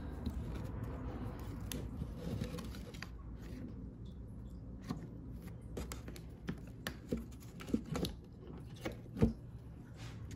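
Honda K-series VTEC rocker arms and their metal locking pins being handled and pulled apart: scattered short metal clicks and clinks, irregular and growing more frequent in the second half, with the sharpest one near the end, over a low steady hum.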